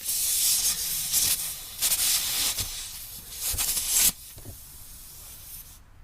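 Loud hissing noise in three stretches, stopping abruptly about four seconds in.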